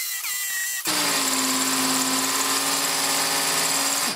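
Electronic music for about the first second, then a Tonfon 20V cordless hammer drill boring a 13 mm bit into a concrete block in hammer mode: the motor runs steadily under load and stops just before the end.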